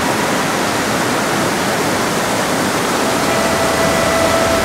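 River water rushing: a loud, steady, even hiss.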